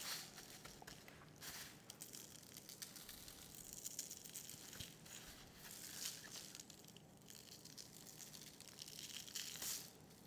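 Faint rustling and crinkling of butcher paper as raw ribeye steaks are turned and patted on it, with dry rub shaken from a shaker bottle onto the meat and paper.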